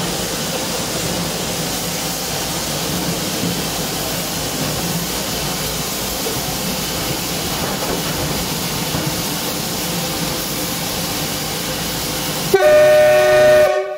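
Pm36 Pacific steam locomotive being turned on a turntable: a steady hiss of escaping steam over a low mechanical rumble. Near the end a loud horn or whistle blast of several held tones sounds for just over a second and cuts off.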